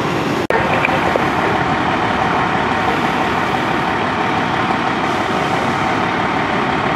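Fire department aerial ladder truck's diesel engine running steadily while parked with its ladder raised, a constant drone with a faint steady hum. The sound drops out for an instant about half a second in.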